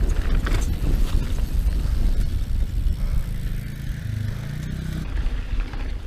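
YT Jeffsy trail bike rolling fast down a rough dirt trail: tyres rumbling over the ground, the bike rattling over bumps, and heavy wind buffeting on a body-mounted GoPro microphone. The rattles and knocks are busiest in the first second or so, then it settles to a steadier rumble.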